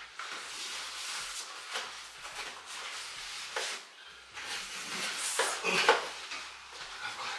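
Indoor handling noises: rustling with a few knocks and clicks, the loudest a little past the middle.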